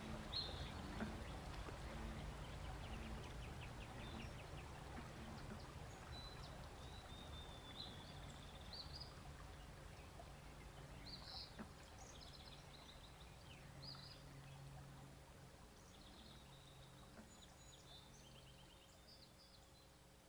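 Recorded natural soundscape: scattered short bird chirps over a steady low background, fading out gradually.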